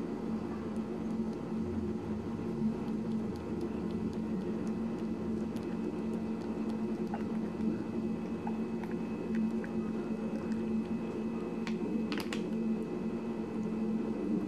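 Rabbit chewing blueberries: small wet squishing and clicking sounds, with a short cluster of sharper clicks about twelve seconds in, over a steady low hum.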